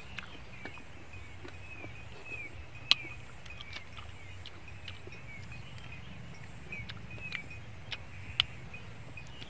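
Steamed snail shells clicking and knocking together as they are handled and picked at with a toothpick, a few sharp clicks standing out about three seconds in and near the end. Behind it a bird chirps in short repeated notes over a low steady hum.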